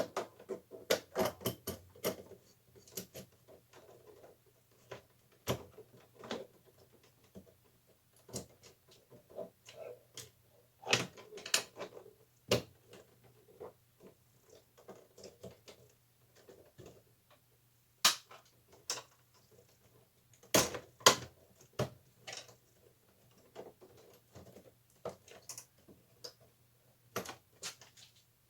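Irregular sharp clicks and knocks of a replacement circuit breaker being handled and pushed into the slot of a breaker panel that will not take it at once, over a faint steady low hum.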